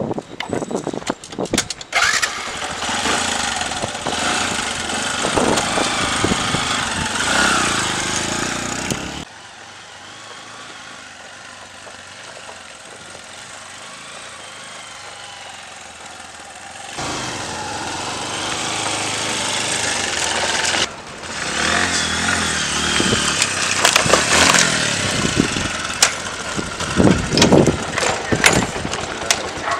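Small motorcycle engine starting and running as the bike rides off. The sound drops and rises abruptly a few times.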